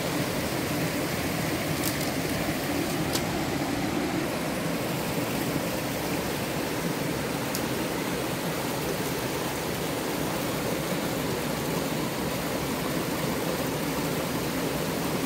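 Steady rushing noise with no tone to it, broken by a few faint clicks.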